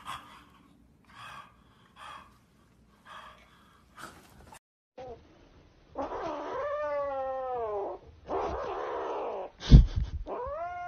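A few faint short sounds, then a grey kitten meowing loudly: a long drawn-out cry that rises and falls in pitch, a rougher, noisier cry, a sharp thump, and a final rising meow.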